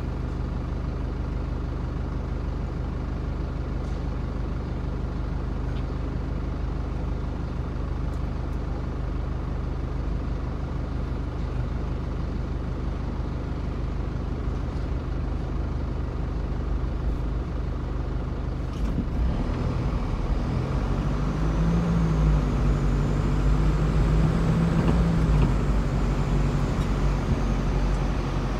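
Car engine idling steadily while stopped in traffic, then revving up as the car pulls away and accelerates, its pitch rising and dipping.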